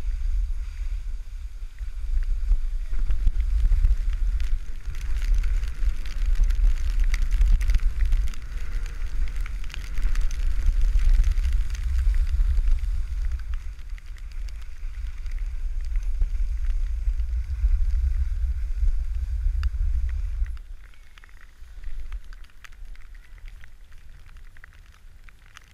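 Skis scraping and hissing over snow on a downhill run, with wind buffeting a GoPro's microphone as a heavy rumble. Both drop off sharply about twenty seconds in, leaving a faint hiss.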